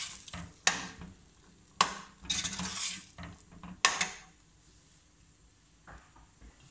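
Metal slotted spoon stirring peas in a watery sauce in a stainless steel pot: three sharp clinks of the spoon against the pot and a brief swish through the liquid, then the stirring stops about four seconds in.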